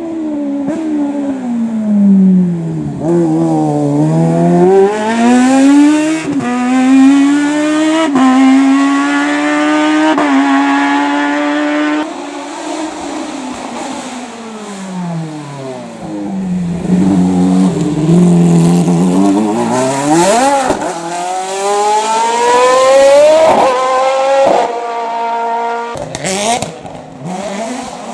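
Race car engines running hard on a hillclimb: the pitch falls as the car brakes and downshifts, then climbs up through the gears, dropping back at each upshift, several times over. The sound breaks off abruptly about twelve seconds in and again near the end.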